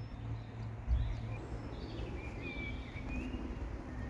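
Outdoor farm ambience: faint bird calls over a low steady rumble.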